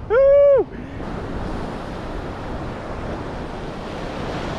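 A man's excited whoop, held for about half a second, then a steady wash of surf breaking on the beach with wind on the microphone.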